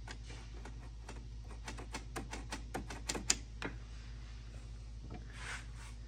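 A run of small, irregular clicks and taps, about a dozen over three and a half seconds with one sharper click near the middle, as the plastic housing and spring of a left-hand ATV throttle are worked into place on the handlebar, followed by a softer rustle.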